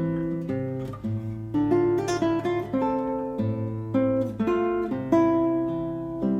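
Background music: an acoustic guitar picking and strumming chords, a new note or chord about every half second, each ringing and fading.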